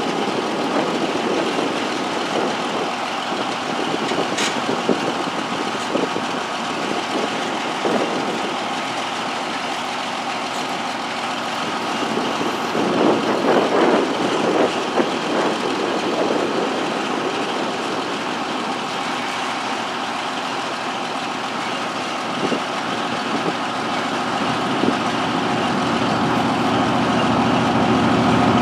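Northwest 80D crane's engine running steadily as it lowers a load on the hook, with a few knocks about halfway through and the engine getting louder near the end.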